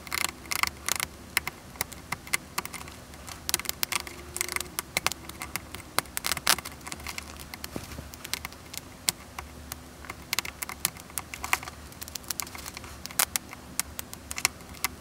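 Snap-off craft knife blade scoring and cutting through a soft resin cast, an irregular run of small scratchy clicks.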